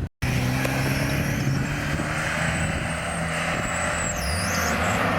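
Off-road vehicle's engine running steadily, its note dropping about four seconds in, over a hiss of tyres, snow or wind; a thin high whine dips at the same moment.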